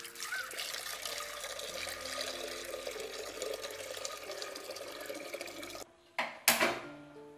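A stream of water pouring into an earthenware clay pot, stopping abruptly about six seconds in. Then two sharp clicks as a gas stove knob is turned to light the burner.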